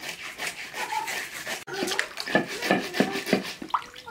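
Climbing perch being scaled by hand-rubbing them against a wet, rough concrete floor: repeated gritty scraping strokes.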